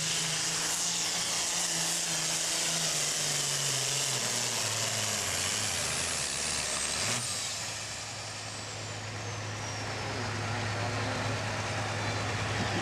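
Turbocharged diesel engine of a John Deere super farm pulling tractor running flat out under load while pulling the sled, its pitch sagging as the tractor bogs down about five seconds in. About seven seconds in the throttle comes off: a high turbo whine winds down while the engine settles to a lower, steady speed.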